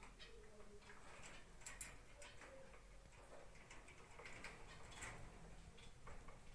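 Faint, irregular clicks and ticks, a few sharper ones standing out, over a low steady hum.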